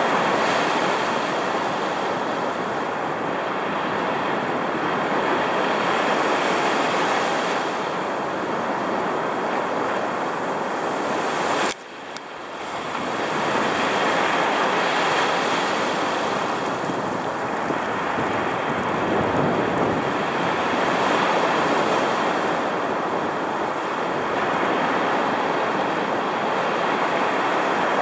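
Rough ocean surf breaking on a sandy beach: a loud, steady rushing that swells and eases as waves come in. About twelve seconds in there is a sharp click and the sound drops out abruptly, then builds back over a second or two.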